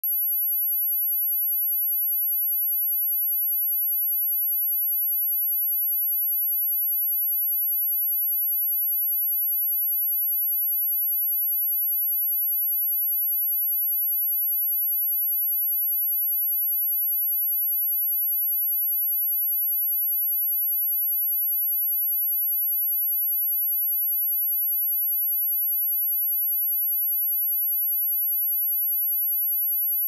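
A steady, high-pitched 11,695 Hz sine-wave test tone, one pure pitch held without change.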